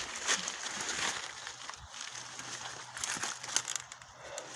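Irregular crackling and rustling of dry leaves and twigs, a scatter of small sharp clicks.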